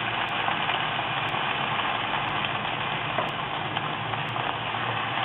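Parboiled asparagus frying in hot oil: a steady sizzle with occasional small pops.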